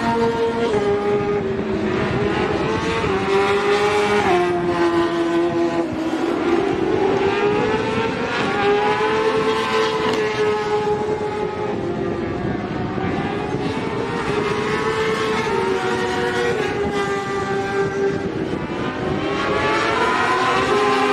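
Several sport motorcycles racing at high revs, their engine notes overlapping and rising and falling in pitch as they accelerate and pass.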